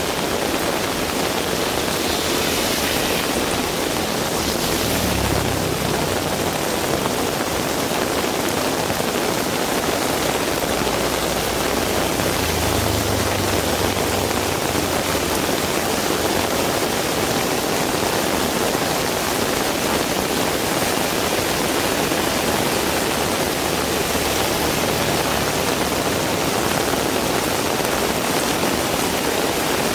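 Heavy rain pouring steadily, a dense, even hiss of rainfall. A low rumble rises under it twice, about four seconds in and again about twelve seconds in.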